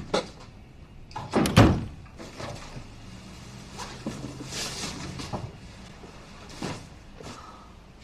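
A few knocks and clicks of things being handled, the loudest a clatter about one and a half seconds in, with a short hiss near the middle.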